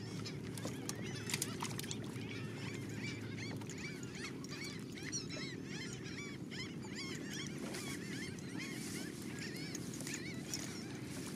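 Many birds calling, with short repeated calls overlapping in quick succession, over a steady low rumble.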